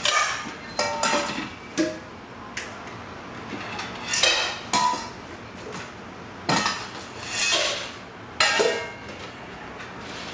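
Dishes and bowls clattering and clinking on a counter, about seven separate bursts, several with a short ringing tone.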